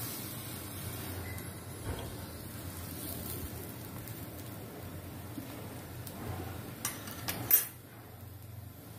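Metal spatula clinking and scraping on a flat griddle pan (tawa) as tacos are turned and pushed together, over a low steady hiss. A few sharp clinks come about seven seconds in, the loudest about seven and a half seconds in.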